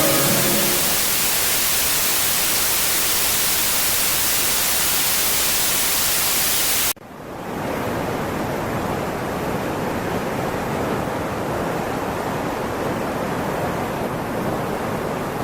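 Steady hiss of static that cuts off suddenly about seven seconds in, followed by a lower, steady rush of water.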